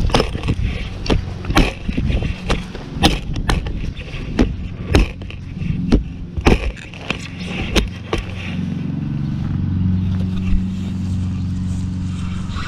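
Shovel digging into soil: a series of sharp chops and scrapes as the blade cuts the ground. About eight seconds in, the chopping stops and a steady low hum sets in.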